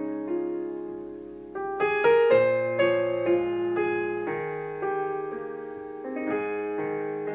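Kawai digital piano playing a slow, chordal melody, both hands, with notes held and fading between chords. A louder group of chords comes in about a second and a half in, then the playing settles back to gentler held chords.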